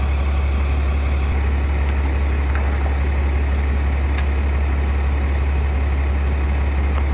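A heavy engine idling steadily with a low drone, with a few faint clicks through it.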